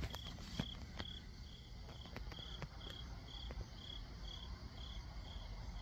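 A cricket chirping outdoors at night: short, high chirps repeating steadily about twice a second.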